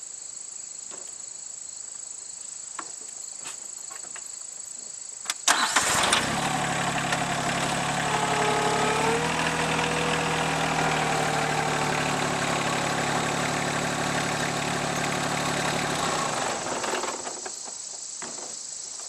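Rural King RK24 subcompact tractor's engine cranking and catching about five seconds in, then running steadily as the tractor pulls forward, with a rising whine near the middle, before it stops about seventeen seconds in. Crickets chirp steadily throughout.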